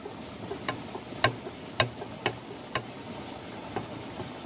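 Sharp metallic clicks, about one every half second, as the shaft of a 500 W mini hydro turbine is turned by hand in its hub. The clicking comes from a broken ball bearing.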